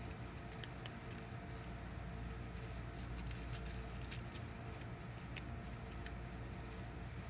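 Steady low background rumble with a few faint, irregularly spaced light clicks.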